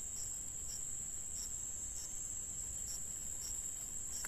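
Night crickets: a steady high trill, with short chirps from another insect repeating roughly every half second or so.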